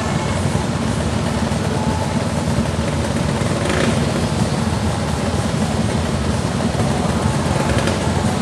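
Several vintage motorcycle engines running together, steady with no revving or change.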